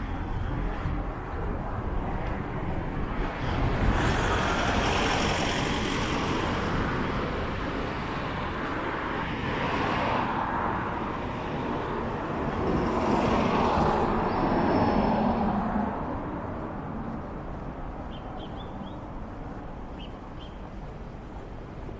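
Street traffic: vehicles passing by over a steady traffic hum. The loudest passes come about four seconds in and again around thirteen to fifteen seconds in, and it grows quieter near the end.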